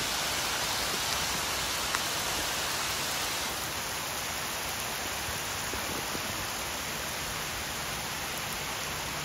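Torrential rain shower pelting the open surface of a wide river: a steady, dense hiss of countless drops striking the water.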